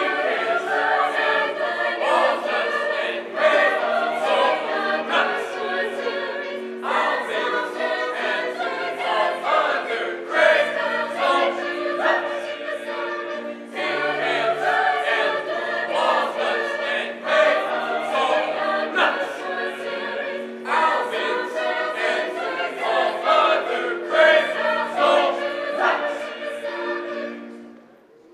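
A high school choir singing in phrases a few seconds long, with brief breaks between them; the singing drops away near the end.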